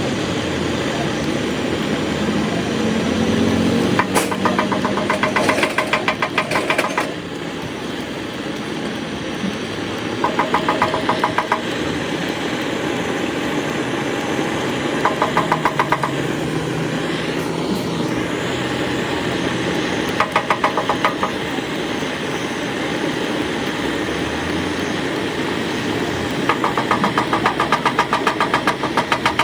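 A steady machine noise runs throughout. Five times it is broken by a burst of rapid, even mechanical rattling lasting one to three seconds.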